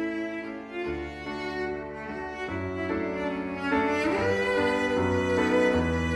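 Slow background music of sustained bowed strings, violin and cello over a low bass line, the chords changing about once a second and swelling slightly near the end.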